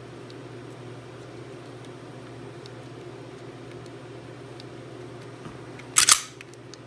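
Kahr pistol trigger being pulled in a dry-fire check as the over-travel stop is adjusted: a sharp cluster of metallic clicks about six seconds in and another click at the end, over a steady low hum.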